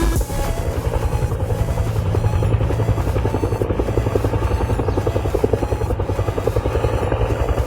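Helicopter rotor chopping in a fast, even rhythm over a steady engine hum.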